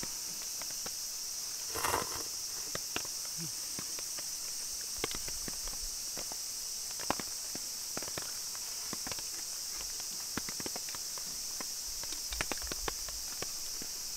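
Insects chirring steadily in a high, even chorus, with scattered small taps and clicks from eating out of a metal pot with chopsticks, and a short noodle slurp about two seconds in.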